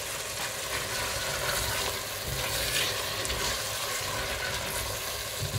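Chicken curry sizzling in a stainless steel pot as a silicone spatula stirs through it.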